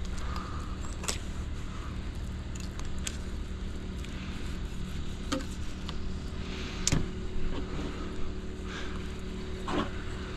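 Fillet knife slicing and scraping through a speckled trout on a plastic table, in scattered soft clicks and short scrapes, over a steady low motor hum.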